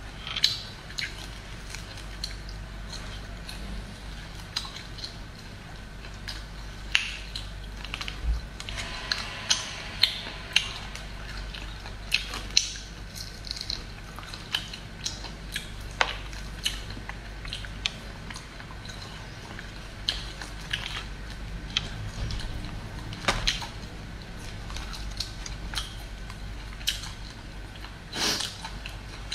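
A duck neck being torn apart by hand and chewed close to the microphone: irregular sharp clicks and crackles of meat and bone over a faint steady hum.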